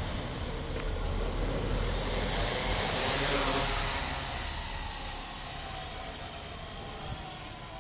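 Electric hexacopter's six motors and propellers whirring as it lifts off and climbs away, louder about three seconds in, then fading as it gains height.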